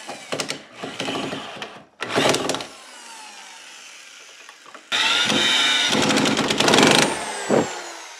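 DeWalt power drill driving screws through a steel cabinet hinge into the wood frame. A few short bursts in the first three seconds, then a longer run from about five to seven seconds, and the motor's whine falls in pitch as it winds down after each burst.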